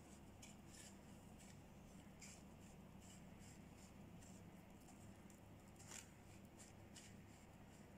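Faint, scratchy rustling of breadcrumbs as fingers press and pat them onto skewered chicken pieces on a plate, in short irregular strokes with one slightly louder scrape about six seconds in. A steady low hum runs underneath.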